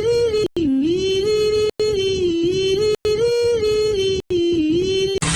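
A voice holding long notes at a steady pitch, with small downward dips, broken by abrupt silences about every second and a quarter.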